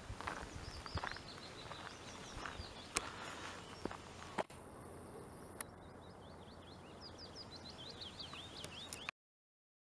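Small songbirds singing in the scrub: long phrases of quick, high chirping notes over faint outdoor hiss, with a few crunches on the gravel track near the start. The sound cuts off abruptly near the end.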